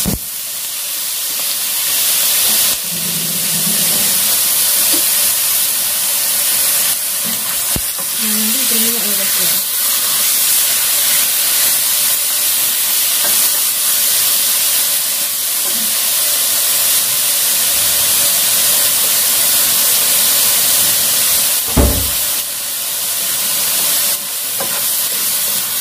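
Chicken pieces sizzling in a hot nonstick wok, stirred with a spatula, with a steady frying hiss. No oil has been added, so the chicken is frying in the fat rendering out of its own skin. One sharp knock comes late on.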